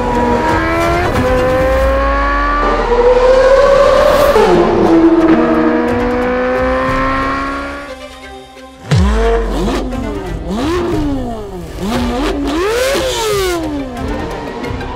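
Chevrolet Corvette C8 Z06's flat-plane-crank V8 through a Kline Inconel exhaust, accelerating hard with its pitch climbing in steps through several upshifts. After a brief lull about eight seconds in, it comes back with a sudden loud flare and deep rumble and is revved several times, the pitch sweeping up and down.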